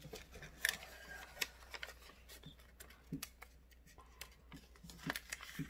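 Origami paper rustling and crinkling as it is folded and pressed into creases, with scattered light clicks and taps.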